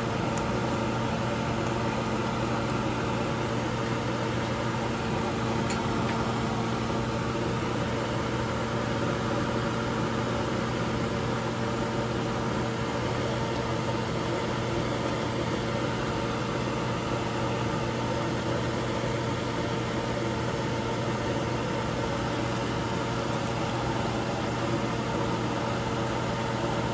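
A kitchen appliance running: a steady electric hum over an even hiss.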